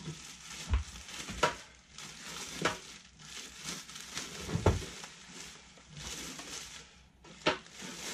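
Cardboard and plastic packaging rustling and crinkling as a portable propane heater is unpacked, broken by several sharp knocks, with a heavier thump a little past halfway.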